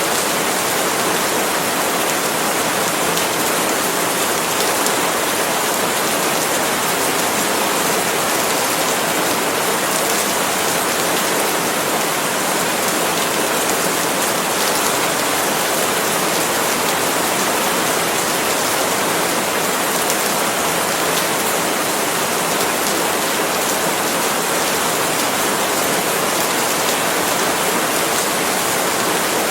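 Steady, heavy rain falling on palm leaves, a dense even hiss of countless drops with no let-up.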